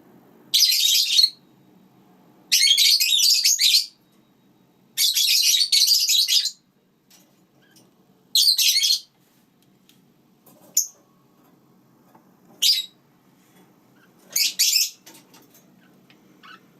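Lineolated parakeets chattering in seven high-pitched bursts separated by pauses, five lasting up to about a second and a half and two brief single chirps.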